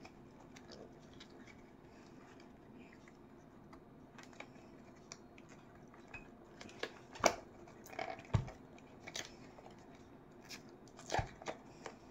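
A silicone mold being peeled and flexed by hand off a cured epoxy resin tray: scattered small crackles, peeling sounds and clicks as the silicone pulls away from the resin, with a few sharper clicks in the second half over a low steady hum.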